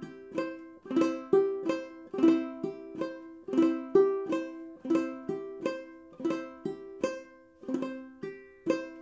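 Duke 10 banjo ukulele played clawhammer style on a C chord: an even, steady rhythm of plucked notes and down-strokes, about three a second, each ringing briefly and fading, with hammer-ons and pull-offs worked in.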